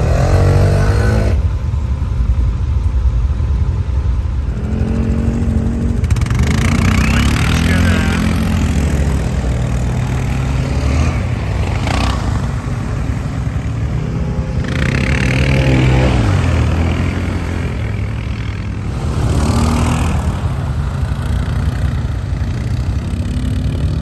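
Quad bike (ATV) engine revving up and down under load, its pitch rising and falling several times, with a few stretches of rushing noise.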